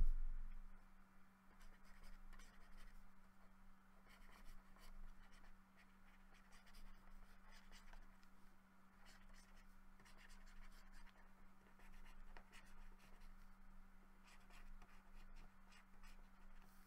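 Faint scratching of a pen stylus on a drawing tablet as brush strokes are painted, over a steady low hum, with a low bump right at the start.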